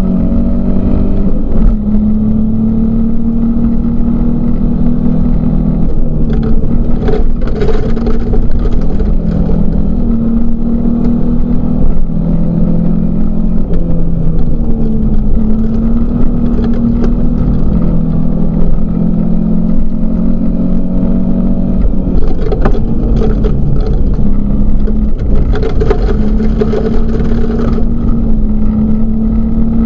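Volvo 244 rally car's engine heard from inside the cabin, working hard at speed on a gravel stage, its pitch stepping up and down again and again as the driver shifts gears and comes on and off the throttle. A few short bursts of louder noise from the rough gravel road come through the body.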